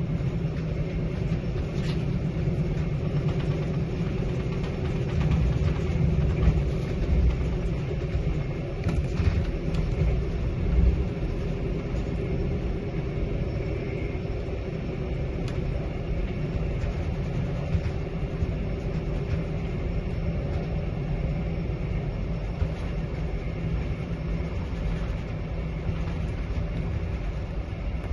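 Passenger train running, heard from inside the carriage: a steady low rumble of the wheels on the track, with a couple of light clicks in the first ten seconds.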